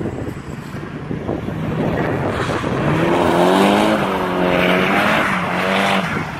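Drift car's engine revving hard as it slides past, its note climbing about two seconds in and bouncing up and down under the throttle for several seconds before falling away near the end. Tyres screech through the slide.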